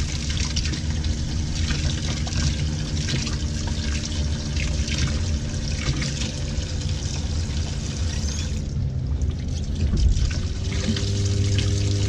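Hot water running from a utility-sink faucet at good pressure, splashing over a hand into the sink, with a steady low hum underneath. The splashing briefly quietens about nine seconds in.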